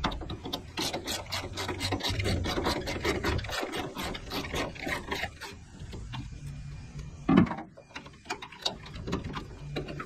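Hand ratchet clicking fast and evenly, about five or six clicks a second for the first five seconds or so, as it turns the Torx bolt that holds a rubber tailgate bumper. A single louder knock comes about two-thirds of the way in, and a few more clicks follow near the end.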